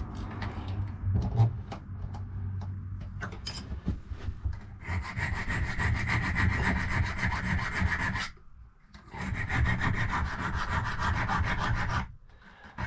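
Metal file scraping a safe key's bit in two runs of strokes with a short pause between, after lighter handling noises, taking a tiny bit more off to fit a lever.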